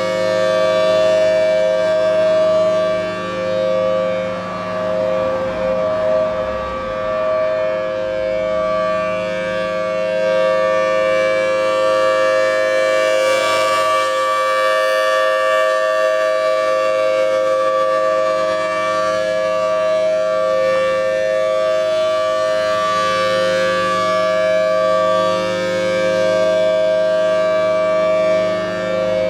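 Federal Signal Thunderbolt 1000T outdoor warning siren sounding its steady Alert signal. It holds a loud, sustained two-tone chord from its 5/6 port-ratio rotor, wavering slightly in level.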